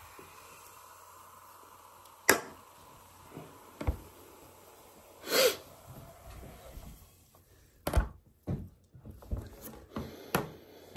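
Freshly poured cola fizzing faintly in a glass. Then comes a sharp knock, like a can or glass set down on a tabletop. A few softer knocks and a breathy sound follow as the glasses are handled.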